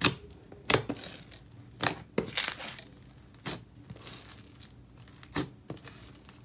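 White glue foam slime packed with microfoam and rainbow foam beads, squeezed and pressed by hand, gives sharp crunches and crackles at irregular intervals as the beads and air pockets pop.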